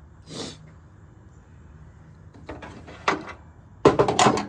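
Metal knocks from work on a car battery: a couple of single knocks, then a quick run of about five hammer taps near the end, the battery terminal being tapped onto its post.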